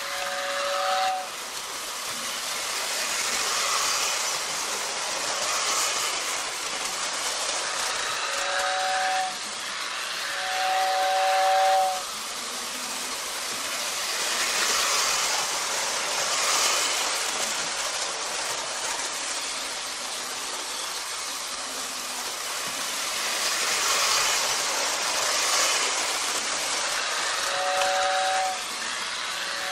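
Toy steam train sound: steady hissing chuffs that swell and fade, with a two-note whistle that toots briefly near the start, gives a short blast then a long one about nine seconds in, and toots again near the end.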